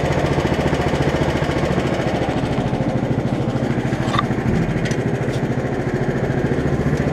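11 hp Honda single-cylinder engine running steadily under light load, driving a 1959 Case 700 garden tractor along slowly in first gear. A few faint ticks come through about four to five seconds in.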